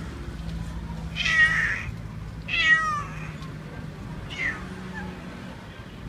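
Domestic cats meowing: three meows, the first two long and loud, the second the loudest and falling in pitch, the third shorter and fainter.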